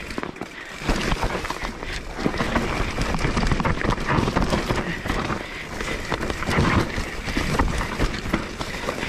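Mountain bike descending a rough dirt trail: tyres on dirt and roots, with a dense clatter of knocks and rattles from the bike over bumps. It gets louder about a second in as the bike picks up speed.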